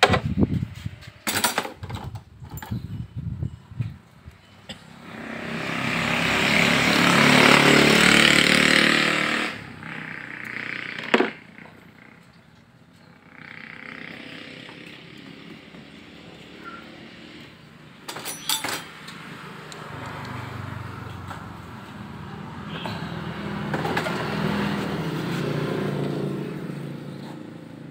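Metal clicks and taps of a socket wrench working on the Honda Vario 125's cam chain tensioner lifter bolts, busiest in the first few seconds. Over them, passing vehicle engines swell up and fade away twice, the louder one a few seconds in and the other near the end.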